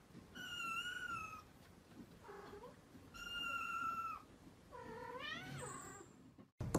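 Cats meowing: three high, thin mews, the last one rising in pitch.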